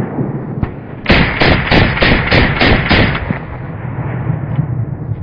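Colt M16A1 rifle firing 5.56 mm rounds: a single sharp shot, then about a second in a rapid string of about eight loud shots lasting about two seconds, with echo dying away after.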